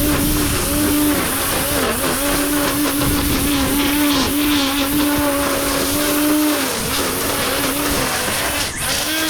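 Petrol-powered grass-cutting machine running at high speed through long, overgrown grass, its steady pitch dipping briefly several times as the engine bogs under the load.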